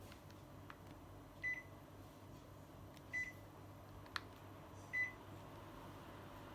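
Panasonic air conditioner indoor unit beeping three times, short single-pitch beeps about a second and a half apart, the receiver acknowledging remote-control commands. A sharp click falls between the second and third beep, over a faint steady hum.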